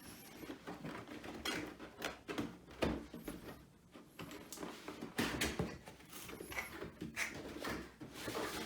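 Cardboard box and its packaging being handled and opened: irregular rustling, scraping and knocking.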